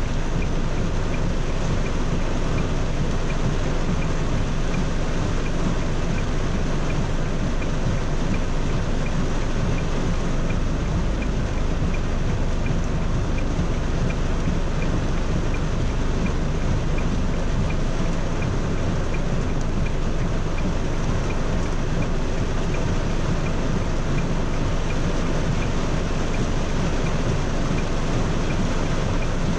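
Heavy rain falling on a car, heard from inside the cabin: a steady hiss with a low rumble underneath.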